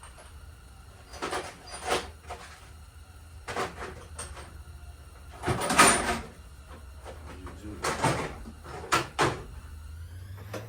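Hand tools being picked up and handled: a string of short, irregular knocks and clatters, the loudest about halfway through, over a steady low hum.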